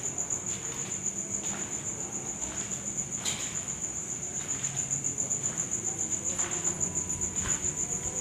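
An insect trilling steadily at one high pitch in rapid, even pulses, with a few faint knocks beneath it.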